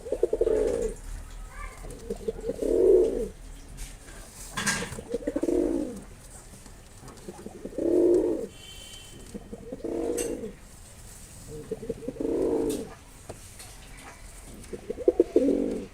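Mosaldom pigeon cooing: seven low, rolling coos of about a second each, repeated roughly every two seconds. A brief click comes about a third of the way in.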